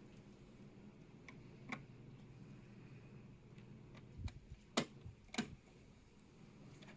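Small metal parts and a screwdriver clicking and tapping while the M.2 drive's tiny retaining screw is fitted. There are a handful of sharp clicks, the two loudest about half a second apart, over a faint steady hum.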